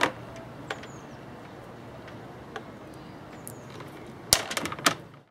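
Wire cutters snipping through insulated cable: a quick cluster of sharp clicks a little over four seconds in, over a low steady background with a few faint ticks.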